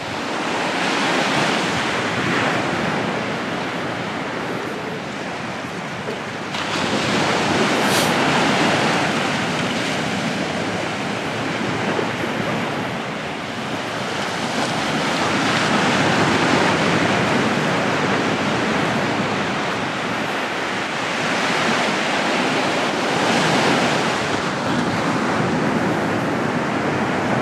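Sea waves breaking and washing up on the beach, a steady rush of surf that swells with each incoming wave about every seven or eight seconds.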